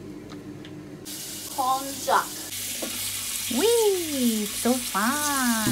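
Kitchen tap running water into a plastic strainer as konjac noodles are rinsed in the sink, starting about a second in and getting stronger. A voice slides up and down in pitch over it.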